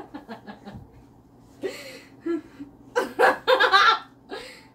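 A woman laughing in a series of bursts: quick short breathy laughs at first, then louder fits, the loudest about three seconds in.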